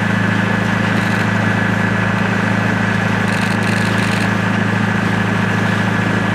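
A docked Coast Guard patrol boat's engine idling: a steady low hum with a thin, constant high tone above it.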